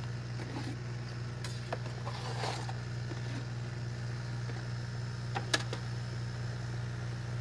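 Steady low hum of the air pump feeding a DIY froth flotation cell, with a few light scrapes and taps as a paddle skims froth off the tub, and one sharp tap about five and a half seconds in.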